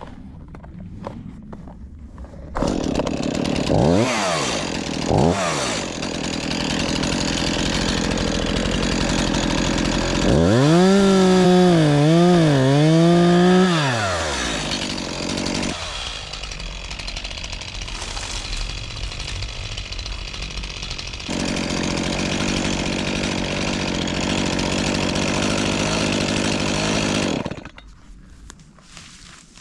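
Two-stroke chainsaw running. It comes in suddenly about two and a half seconds in and is throttled up and down twice. It then runs loud at high revs with a wavering pitch for a few seconds, drops back lower, speeds up again, and cuts off near the end.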